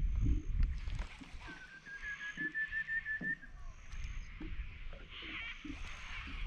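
Birds calling: a rapid trill that rises slightly in pitch, starting about a second and a half in and lasting about two seconds, with short high piping notes repeated every second or two and a burst of chatter near the end. A low rumble underneath is loudest in the first second.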